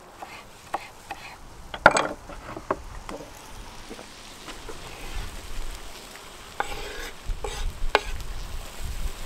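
Sliced tomatoes scraped off a wooden cutting board with a knife into a hot cauldron, sizzling in the fat. Scattered knocks of utensils on metal and wood, the sharpest about two seconds in, with a run of scraping strokes near the end.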